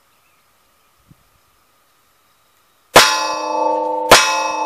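Two .357 Magnum revolver shots about a second apart from a Smith & Wesson Model 65, each hitting a steel plate target that rings afterwards with a slowly fading metallic tone.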